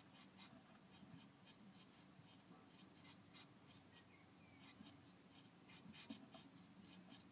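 Faint, dry scratching and rustling from blue tit nestlings shifting in the nest material, a few irregular scratches a second, over a low steady hum.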